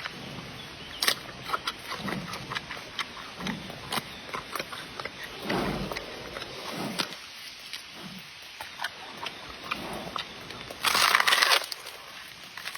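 Panda sounds: low grunts among scattered crunching clicks, with a short loud rush of noise near the end.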